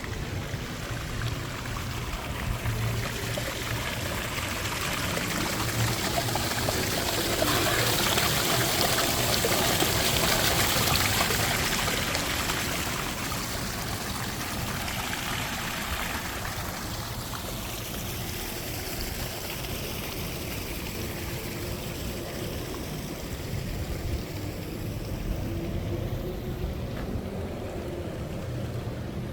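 Water fountain splashing: a steady rush of falling water that swells to its loudest through the middle of the stretch, then eases off.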